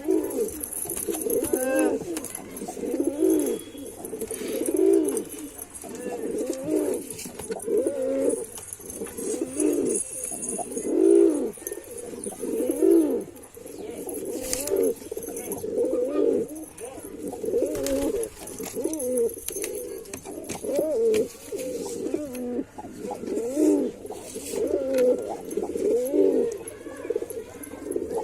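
Male white domestic pigeon cooing over and over, each coo a low note that rises and falls in pitch, repeated about every one and a half seconds.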